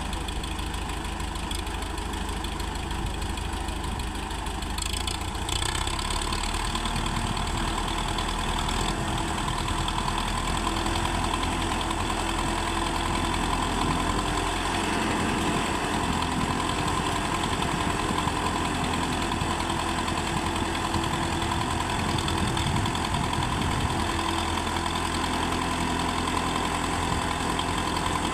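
Belarus tractor's diesel engine running steadily.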